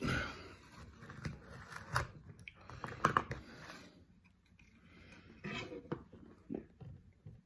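Faint, irregular clicks, scrapes and rustles of close-up handling.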